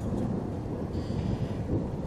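Thunder rumbling low and steadily during a thunderstorm.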